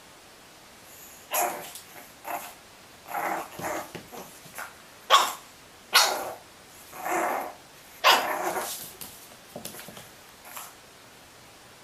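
Pug puppy barking at its own reflection in a mirror: about ten barks in irregular bursts, some short and sharp, some drawn out, starting about a second and a half in.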